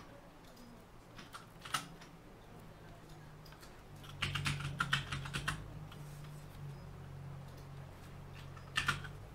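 Typing on a computer keyboard: a few keystrokes about a second and a half in, a quick run of keys around four to five seconds, and another short burst near the end.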